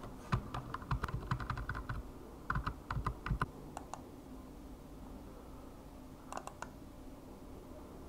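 Quick clicking of computer keys in bursts: a rapid run of about a dozen clicks in the first two seconds, another cluster around three seconds in, and a few more about six and a half seconds in, over a steady low hiss.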